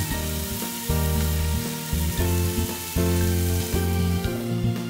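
Chicken pieces sizzling in a hot frying pan as they are turned, over background music. The sizzle dies down near the end as a glass lid goes on the pan.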